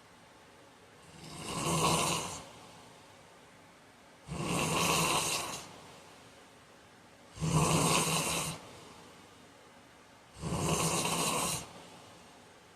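A man snoring in his sleep: four snores about three seconds apart, each lasting about a second.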